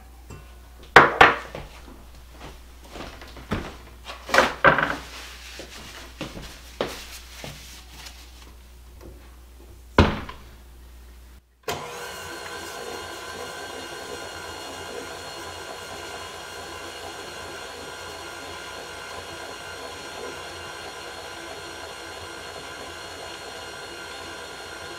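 A few sharp knocks and clinks, then about halfway in a KitchenAid tilt-head stand mixer starts and runs steadily, its motor humming with several steady tones as the flat beater mixes cream cheese, sugar and vanilla in the steel bowl.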